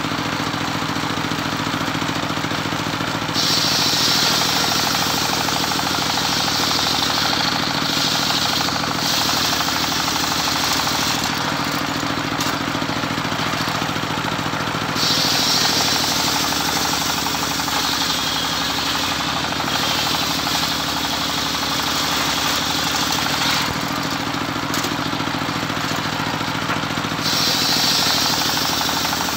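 Engine-driven home-built circular sawmill cutting teak. A steady engine drone runs throughout, and a higher, hissing cutting sound rises over it five times, each for a few seconds, as the blade passes through the wood.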